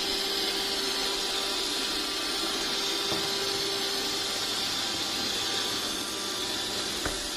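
Roomba robot vacuum running: a steady whirring hiss with a faint steady hum, and a small knock near the end.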